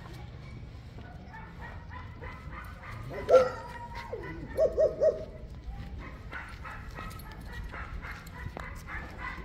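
Dog barking: one loud bark about three seconds in, then three quick barks in a row a second and a half later.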